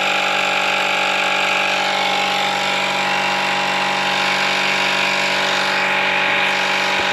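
Fanttik X8 cordless tire inflator running steadily with an even, unchanging hum, its small piston compressor pumping air into a flat motorcycle tire toward a 36 psi preset, the pressure still only a few psi.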